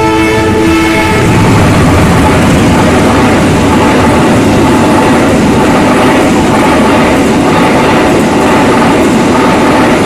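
Passenger train horn giving a two-note blast of about a second, followed by the loud, steady rush and wheel noise of the train's coaches passing close by on the rails.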